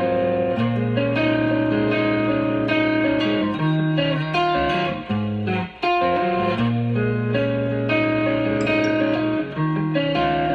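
Guitar music with a low bass line: held chords and notes changing every second or so, with a brief break just before the middle.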